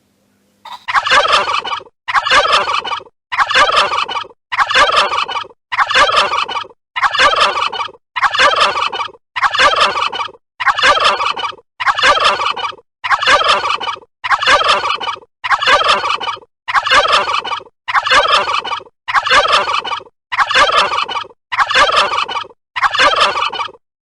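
A bird's call, the same short call repeated about eighteen times, roughly once every 1.2 seconds.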